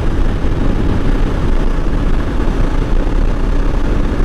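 Honda Unicorn 160's single-cylinder engine running steadily at high speed during a top-speed run, under heavy wind rush on the rider's microphone.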